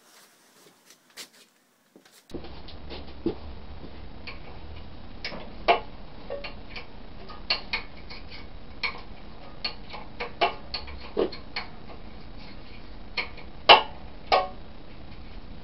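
Irregular metallic clicks and clanks of a wrench working the nuts on an engine's base mounts, one or two a second, over a steady low hum that starts about two seconds in.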